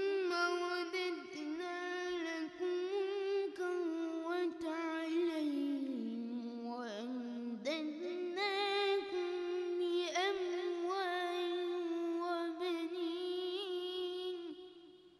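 Melodic Qur'an recitation by a solo reciter's voice: one long held phrase with fast trills and turns. It dips lower in pitch about midway, climbs back up, and ends shortly before the close.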